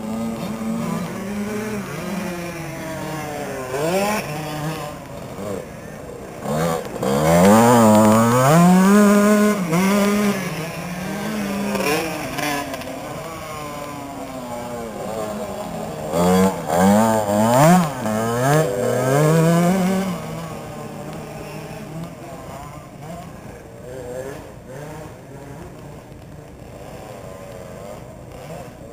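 Youth motocross bikes revving up and down as they ride through the track's corners. The engines are loudest as bikes pass close, twice, around 7–10 s and 16–20 s in, then fade to fainter engine noise from further around the track.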